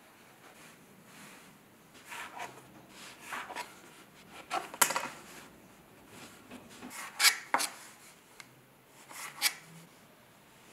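Stiff kaolin–alumina cone-pack wadding being trimmed and handled with a metal knife on a wooden workbench: about six short, sharp scrapes, the loudest near the middle.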